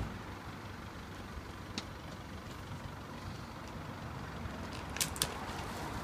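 Toyota Land Cruiser 90 engine idling steadily, with a few sharp clicks, two of them in quick succession about five seconds in.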